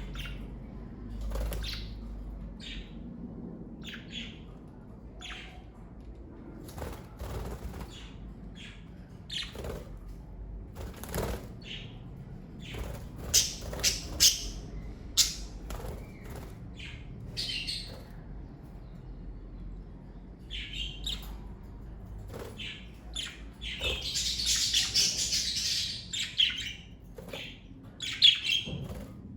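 Pet budgerigars chirping in short, separate calls, with a denser stretch of chatter about 24 seconds in.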